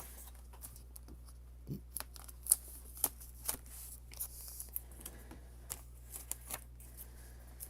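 Scattered light clicks and taps at irregular intervals, from small objects being handled on a desk, over a steady low hum.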